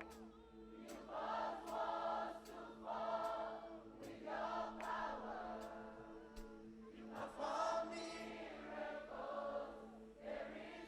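Many voices singing a gospel worship song together, choir-like, in phrases over a steady held keyboard chord, with faint regular ticks from a cymbal or hi-hat.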